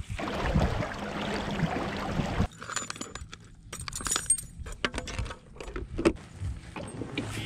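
Rustling handling noise for a couple of seconds, then a plastic tackle box being opened and lures and hooks clinking and rattling in its compartments as a spinnerbait is picked out, in a run of sharp clicks.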